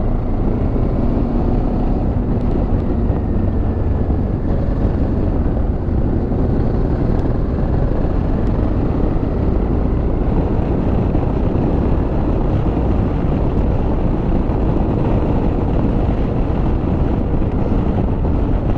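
Honda Africa Twin 750's V-twin engine running steadily at cruising speed, mixed with wind rushing over the helmet-mounted microphone.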